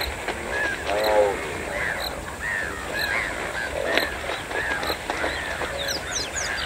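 Bird calls: many short chirps that rise and fall, repeated all through, with a deeper honking call about a second in.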